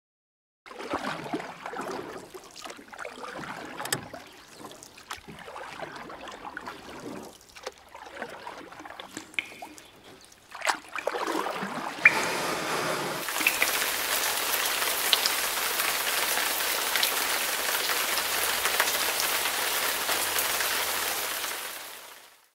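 Rain sound effect: an uneven patter at first, then about halfway in a steady downpour with scattered drop ticks, fading out at the end.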